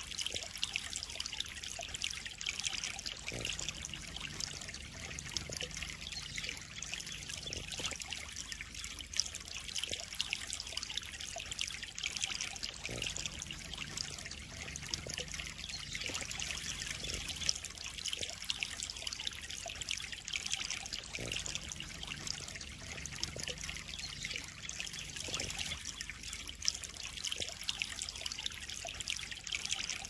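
Water trickling and splashing steadily into a pond.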